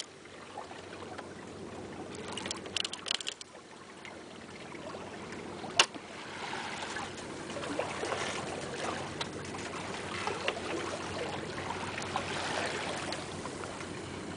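Water trickling and lapping along the hull of a small sailboat under spinnaker in a light breeze, getting louder after about six seconds. A short run of clicks comes about two to three seconds in, and a single sharp knock, the loudest sound, just before six seconds.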